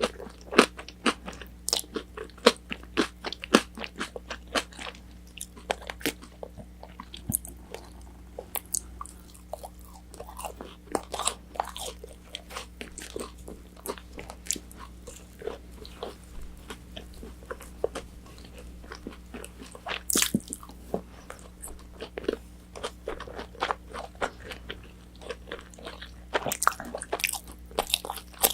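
Close-miked biting and chewing of crispy battered fried orange chicken: a run of sharp, wet crunches, dense at first, then sparser, with a loud crunch about twenty seconds in and another quick cluster near the end.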